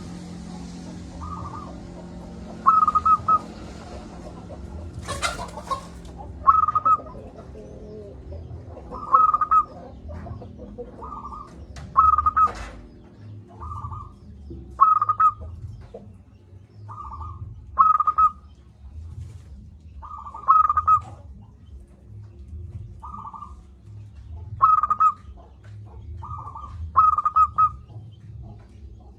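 Zebra dove (perkutut) calling: short cooing notes repeated every second or two, sometimes two close together, over a low steady hum. A brief crackle about five seconds in.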